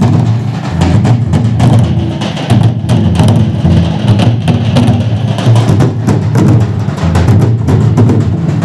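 Nagara kettle drums beaten with sticks together with large red barrel-shaped dhol drums, playing a dense, unbroken drumming rhythm with a heavy booming low end.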